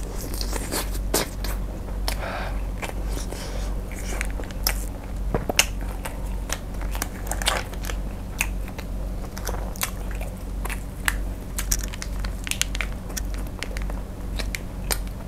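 Kanzler Singles sausages being bitten and chewed close to a lapel microphone: crunchy snaps of the sausage skin and chewing, full of small irregular clicks, several a second.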